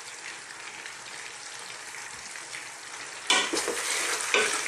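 Sliced potatoes and carrots sizzling in butter and olive oil in a large pot. About three seconds in, a wooden spoon starts stirring the slices, adding a louder scraping rustle over the sizzle.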